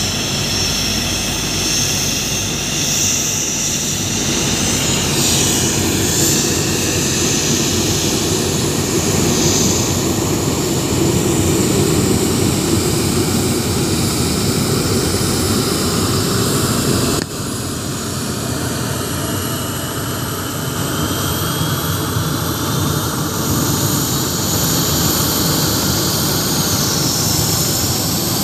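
Jet airliner's engines running as it taxis past: a steady rush with a high whine on top. About two thirds of the way through the sound drops suddenly in level, and a faint rising whine follows.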